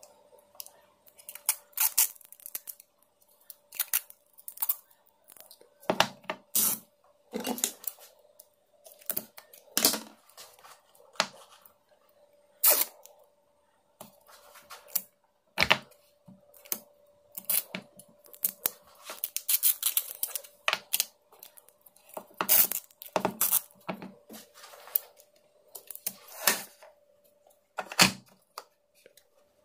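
Irregular sharp clicks, snips and short tearing noises of hands-on bench work on a battery pack, over a faint steady hum.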